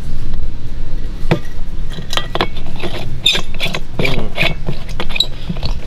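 Irregular sharp clicks and light scrapes of an aluminium canteen cap being handled and rubbed by hand to clear its corrosion, with a steady low rumble underneath.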